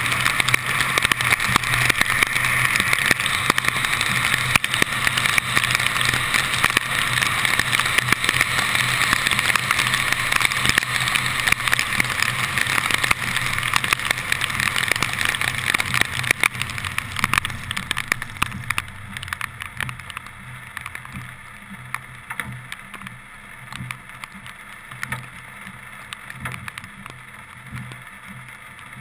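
Car driving through heavy rain on a wet road, heard from a camera on the hood: a steady hiss of tyres and spray on the wet pavement with raindrops ticking on the camera housing, over a low engine hum. The hiss falls off markedly after about 18 seconds as the car slows.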